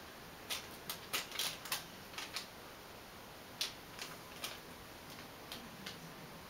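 Cardboard box crackling and clicking in short, sharp snaps under the cats sitting on and inside it: a quick cluster in the first two and a half seconds, then a few spaced clicks.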